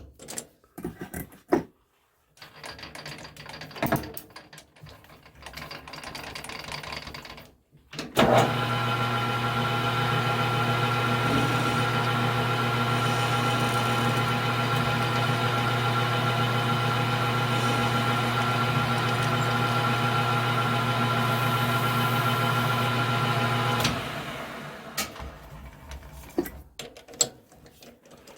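A small metal lathe is switched on about eight seconds in and runs steadily with a strong hum for about sixteen seconds while the ends of 3/8-inch steel rod stock are faced. It is then switched off and winds down. Before and after it come the clicks and clatter of handling the work and tools.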